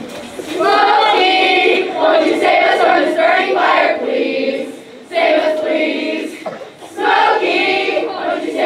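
A group of girls singing together in unison without instruments, in three phrases with short breaks between them.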